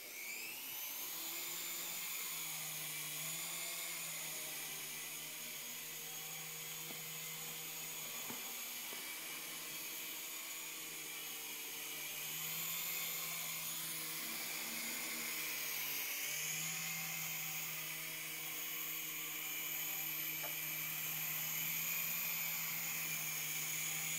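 Small electric toy RC helicopter flying, its motor and rotors whining steadily at a high pitch over a low hum. The pitch rises as it spins up at the start and then wavers gently.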